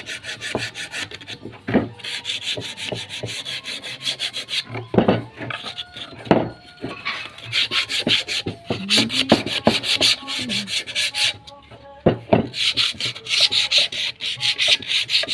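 Sandpaper rubbed by hand on a wooden piece to prepare it for polishing: quick back-and-forth scratchy strokes in runs of a few seconds, with short pauses between runs.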